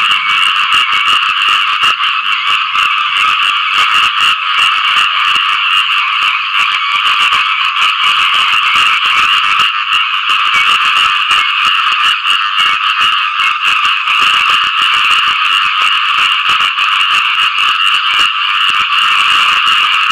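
A dense chorus of khiat i-mo frogs: males calling for mates after rain. Many overlapping calls run on without a break.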